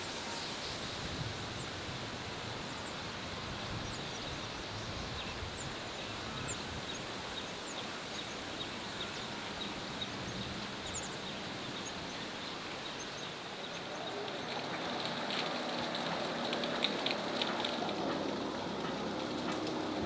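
Steady rain hissing, with scattered small drip ticks. About two-thirds of the way through it grows a little louder and fuller, with a nearer patter of drops.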